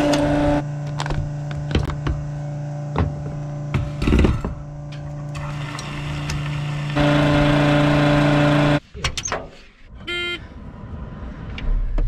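Farm fuel pump humming steadily while fuel runs through the nozzle into the combine's tank, with scattered clicks and clunks of the nozzle and fittings. The hum stops abruptly about three quarters of the way through, and a short electronic beep follows.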